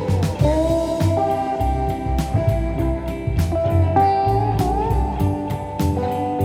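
Background music: guitar with sliding notes over a steady drum beat.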